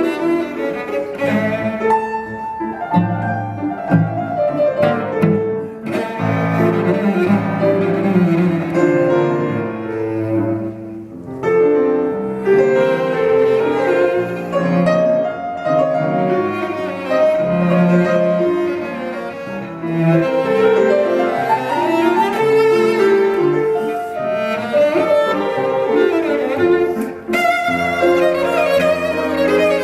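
Cello and piano playing together without a break: bowed cello lines over piano accompaniment.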